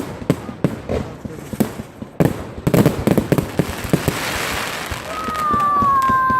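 Fireworks and firecrackers going off in a rapid string of cracks and bangs, with a hissing rush around the middle. About five seconds in, a whistling firework starts: a steady high whistle that sinks slightly in pitch.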